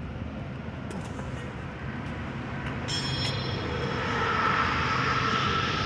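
Vehicle engine running steadily with a faint whine, the rumble and hiss growing louder over the last couple of seconds. A brief high-pitched chirp about three seconds in.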